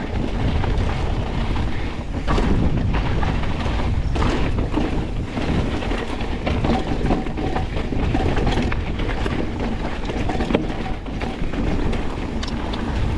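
Wind buffeting the microphone over the rolling rumble and clatter of a 2025 Pivot Switchblade full-suspension mountain bike riding fast over rough, rocky trail, with frequent knocks from the wheels and bike striking rocks.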